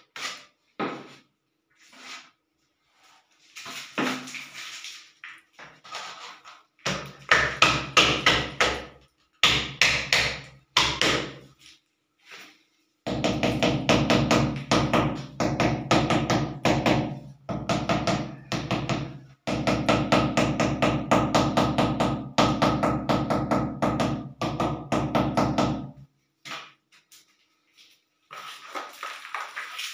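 Mallet tapping a ceramic wall tile in long runs of rapid taps, several a second with short pauses between runs, bedding the tile into its mortar. Lighter scattered knocks and scrapes come first, as mortar is worked with a trowel.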